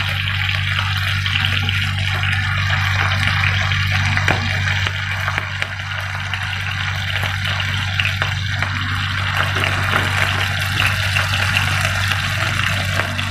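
Beef seekh kebabs sizzling steadily in hot ghee on a flat tawa, over a steady low hum.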